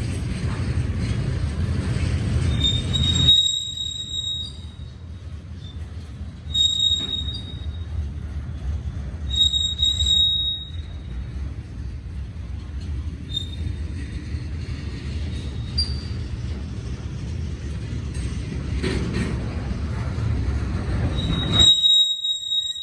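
Freight train rolling past with a steady low rumble and high-pitched steel wheel squeal that comes and goes several times. The sound cuts off abruptly about a second before the end.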